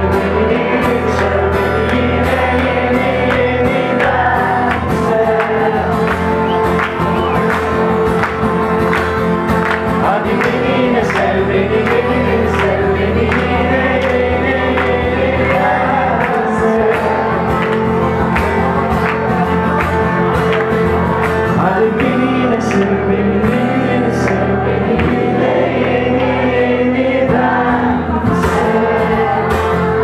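Live acoustic song: acoustic guitar playing chords under a man singing, with other voices singing along.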